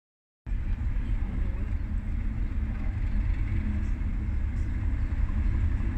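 Class 37 diesel locomotive's English Electric engine running as the locomotive moves slowly forward: a steady low rumble that starts about half a second in.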